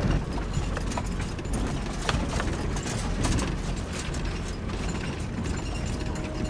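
A 4WD driving along a rough sandy, stony track, heard from inside the cabin: a steady rumble from the engine and tyres, with frequent rattles and knocks from the vehicle bouncing over the track.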